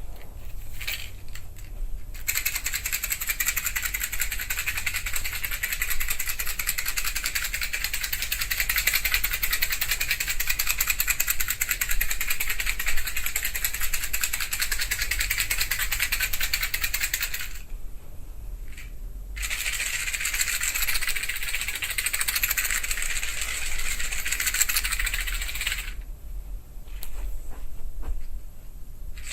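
Wooden matches rattling inside a matchbox as the box is shaken, in two long spells, with a short pause between them and a few faint clicks near the end.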